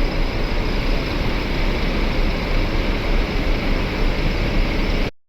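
Intercity coach bus pulling away, a steady rush of engine and road noise with a deep low rumble and no horn. It drops out to silence abruptly just before the end.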